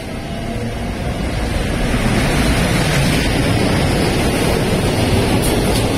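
JR Freight EF510 electric locomotive hauling a container freight train past at speed. It makes a loud rushing noise that builds over the first two seconds and then holds steady as the wagons go by.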